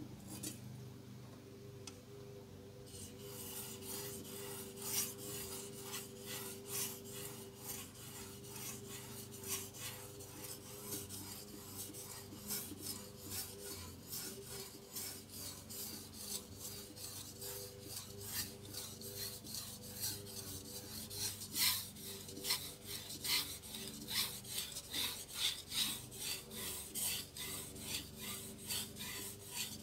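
A chef's knife drawn back and forth across a wet polishing whetstone: a rasping scrape on each stroke, starting about three seconds in and repeating about twice a second, with a faint steady hum underneath.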